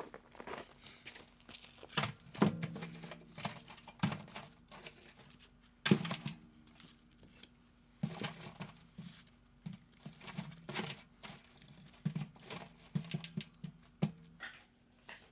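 Irregular taps, knocks and rustling of things being handled by hand, a few of the knocks ringing briefly.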